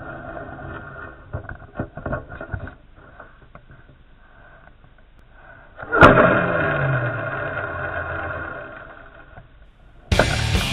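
Handling noise from a rod-mounted camera. A few faint clicks come first, then about six seconds in there is a sudden loud knock as the fishing rod is swept up and bends into a strike. A rushing noise with a falling tone follows and fades over about three seconds, and music starts near the end.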